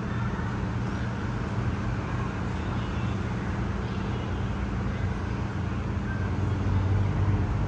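Steady low background rumble with a low hum underneath, even throughout, with no distinct knocks or voices.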